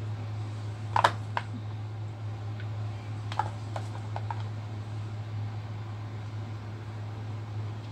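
A steady low hum, with a few light clicks and taps about a second in and again around three to four seconds in, from hands handling a plate of fish and a plastic food container.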